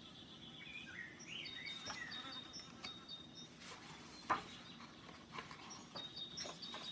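A page of a picture book being turned, with a sharp papery flick about four seconds in, over faint high chirping.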